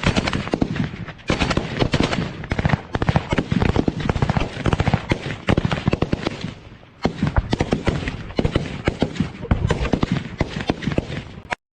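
Sustained automatic machine-gun fire, shots in rapid bursts so close together they nearly run into one another. The firing eases briefly about two-thirds of the way through, picks up again, then cuts off suddenly near the end.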